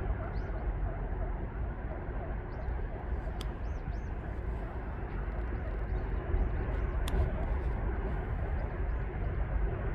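Steady outdoor city-stream ambience: an even rushing noise with a low rumble, with faint high bird chirps scattered through it and two sharp clicks, about three and a half and seven seconds in.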